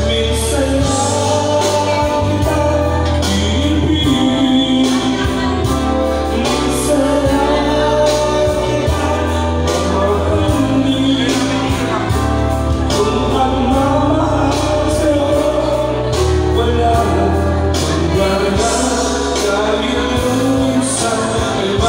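A singer's voice through a microphone and loudspeaker over loud backing music with a steady pulsing bass.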